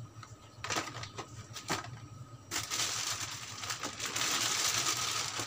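Thin black plastic bag rustling and crinkling as a hand rummages inside it, continuous from about halfway through; before that, a few short crackles of packaging being handled.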